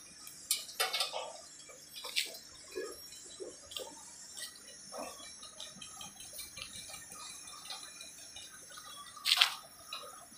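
Scattered light clicks and taps from handling stainless steel chair parts and tools during assembly, with one louder sharp click about nine seconds in.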